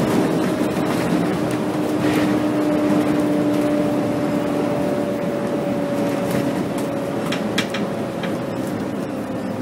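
Scania K270 city bus's diesel engine and road noise heard from inside the cabin as the bus slows on a motorway off-ramp, the engine note falling slowly in pitch. A few short rattling clicks come about three-quarters of the way through.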